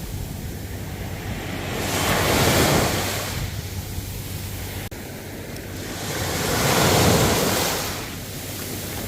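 Ocean waves breaking and washing in, swelling twice (about two seconds in and again about seven seconds in) and easing off between, with a low rumble of wind on the microphone.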